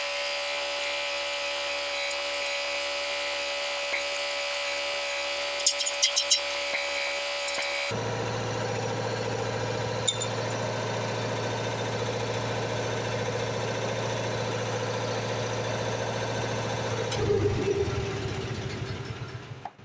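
Welding arc crackling and buzzing steadily as a shank is welded onto a steel backhoe bucket. About eight seconds in the sound changes abruptly to a lower, steady buzz, which dies away near the end.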